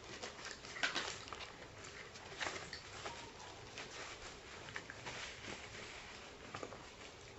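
Paper snack wrappers rustling and crinkling as they are handled and unwrapped, in irregular crackles that are loudest about a second in and again around two and a half seconds.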